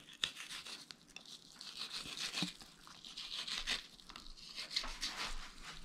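Fillet knife sliding between the skin and meat of a walleye fillet, the blade scraping along the skin against a wooden cutting board: faint, scratchy strokes with a few small clicks.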